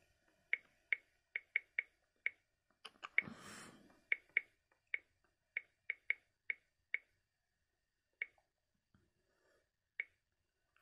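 Vivint SkyControl panel's on-screen keyboard giving short, sharp key-press clicks as a name is typed in: about a dozen and a half irregularly spaced taps, most in the first seven seconds, then two more near the end. A soft rustle comes about three seconds in.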